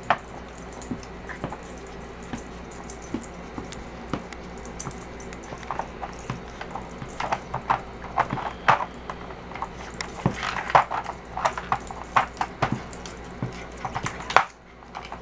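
A puppy working a plastic treat puzzle toy: irregular clicks and clacks of the hard plastic pieces being nosed and pawed, sparse at first and much busier from about seven seconds in.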